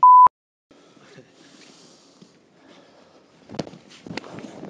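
A short steady beep, about a quarter second, then a moment of dead silence. Faint rustling and shuffling follow, then two sharp slaps near the end as arms strike and block.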